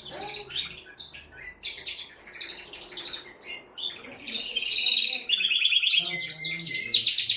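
Male domestic canary singing: a varied run of high chirps and warbling phrases that builds, about four and a half seconds in, into loud, fast trills of rapidly repeated notes.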